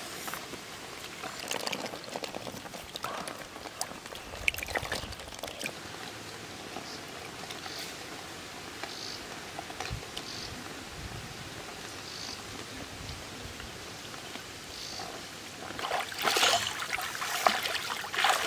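Water trickling and pouring as a woven basket is dipped into and lifted out of a shallow stream. Near the end, louder splashing as feet wade through the water.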